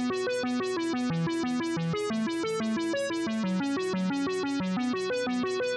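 Background music: a quick, even run of short keyboard-like notes, about four to five a second.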